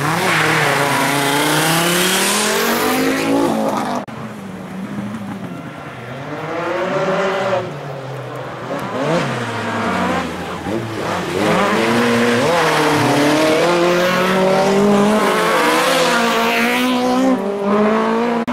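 Rally-prepared Ford Escort Mk2 on a special stage, its engine revving high and falling away again and again as the driver shifts gears and lifts. It is loudest over the last third as the car comes close.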